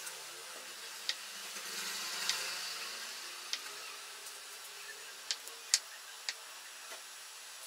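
Kitchen knife slicing a block of paneer on a wooden chopping board: a soft scraping and about six sharp taps of the blade meeting the board.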